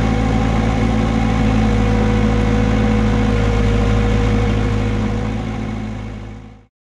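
Vermeer 725 mini skid steer's engine running steadily at constant speed, with a steady whine over the engine note. It fades out and cuts off near the end.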